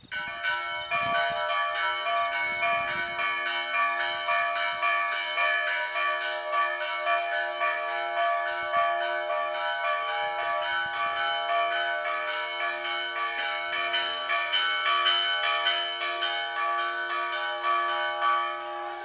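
Church bells ringing a fast peal: several bells of different pitch struck in rapid, continuous succession, starting suddenly.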